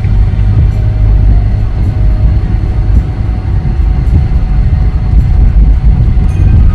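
Steady low rumble of a car driving on a snowy road, engine and snow tyres heard from inside the cabin.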